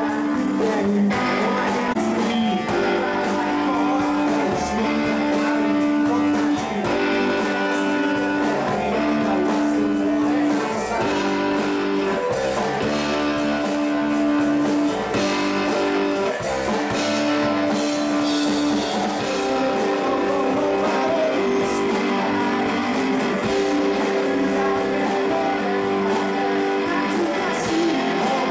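Rock band playing live: electric guitars, bass and drums, with a male voice singing.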